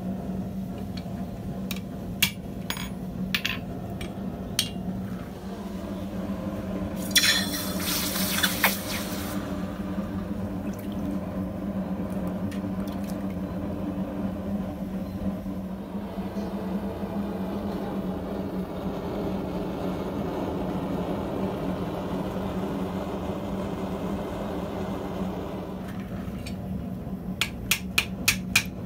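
A few metal clinks, then hot forged steel plunged into a bucket of quench water with a loud hiss lasting about two seconds, followed by a long stretch of water sloshing and churning as the steel is worked in it. Near the end, a quick run of hammer blows, about four a second, on red-hot steel over a bottom-fuller hardy tool.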